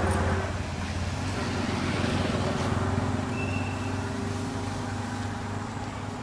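A motor vehicle's engine running steadily. It is loudest at the start, drops off about half a second in, then carries on more quietly.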